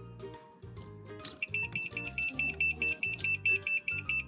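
Electronic buzzer of a bridge load-control kit sounding a rapid run of short, high beeps, about four to five a second, starting about a second and a half in, over background music. It signals a vehicle detected as the count reaches nine, the bridge's full capacity.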